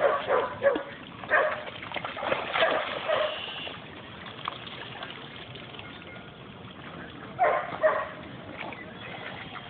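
A dog barking in short bursts, a cluster in the first three seconds and two more about three quarters of the way through, over splashing and lapping lake water as dogs swim out after a ball.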